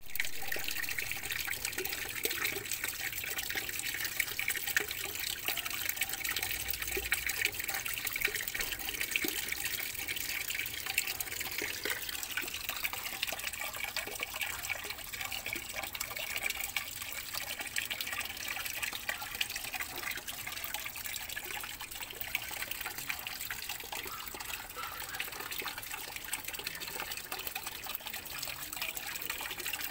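Water falling and splashing steadily onto the surface of a small garden pond, a continuous trickling patter.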